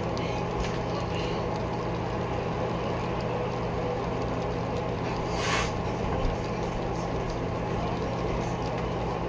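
Steady low hum over an even wash of background noise, with one short hiss about five and a half seconds in.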